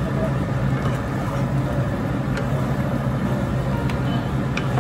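Pork ribs cooking in a bubbling sauce in a nonstick wok, stirred with a wooden spatula, with a few light knocks of the spatula against the pan. A steady low hum runs underneath.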